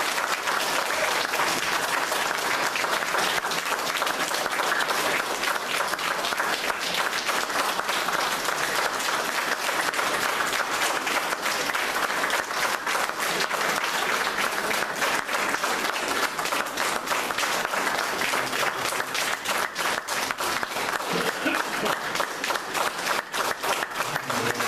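Audience applauding steadily, a dense patter of many hands clapping, with single claps standing out more clearly near the end.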